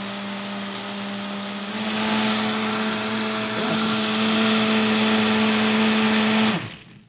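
Countertop blender running, blending cashews with water, lemon, salt and honey into a pudding mixture. Its steady motor hum steps up slightly in pitch about two seconds in, then it is switched off near the end and winds down.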